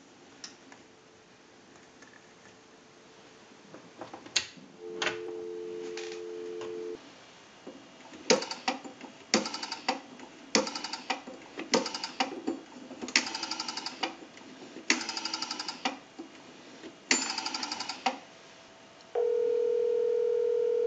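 Dial tone on the line of a GTE Automatic Electric single-slot rotary-dial payphone for about two seconds, then the rotary dial turned and let return digit after digit, giving a group of rapid pulse clicks for each digit. Near the end a louder steady ringback tone starts as the dialed number rings.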